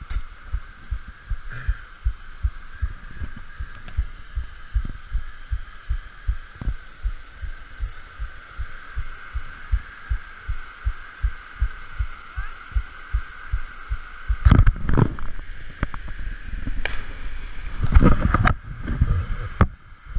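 Regular low thuds, about two a second, from a body-worn camera being jostled as its wearer walks and clambers over rocks. A steady high hiss runs underneath, and two louder rushes of noise come in the last third.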